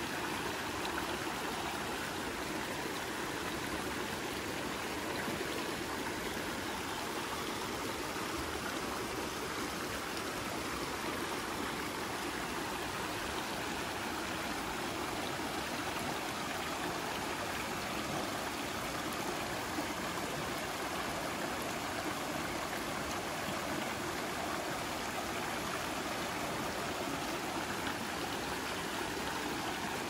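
River water flowing, a steady continuous rush of moving water with no breaks or changes.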